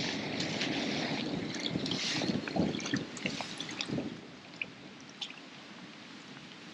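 Water splashing and dripping with small clicks, loudest in the first three seconds, then quieter with scattered drips and ticks.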